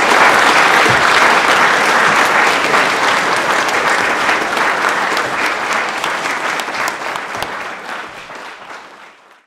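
A hall audience applauding, loud at first and fading away over the last couple of seconds.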